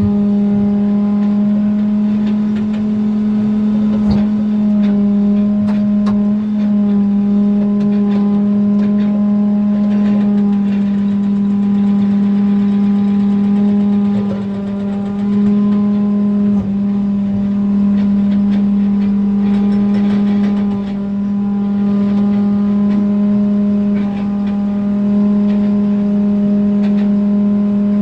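Excavator engine running at a steady speed, one unchanging hum throughout, with a couple of short knocks.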